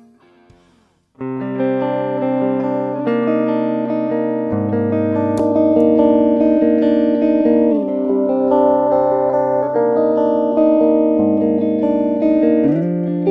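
Electric guitar played through a FAME LEF-313 phaser pedal. After about a second of quiet, held chords ring out, changing every few seconds.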